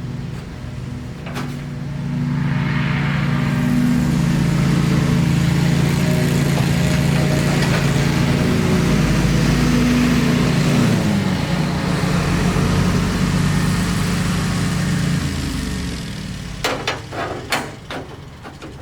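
Background music with low held chords that change a couple of times, louder while nobody speaks. Near the end come a few sharp clicks.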